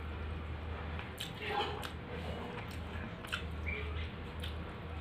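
Soft eating sounds: fingers working rice on a steel plate and chewing, a few small clicks and squelches over a low steady hum.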